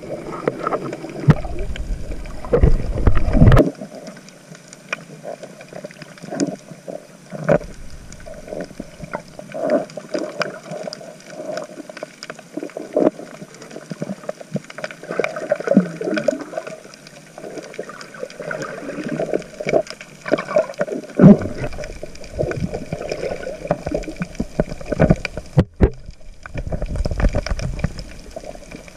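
Underwater sound through an action camera's waterproof housing: muffled water movement with many scattered clicks and knocks, and heavy low rumbling from about one second in to three and a half seconds, and again over the last eight seconds.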